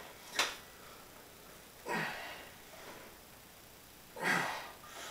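A weightlifter's forceful breaths between barbell press reps: three noisy breaths about two seconds apart, a short sharp one near the start and two longer ones.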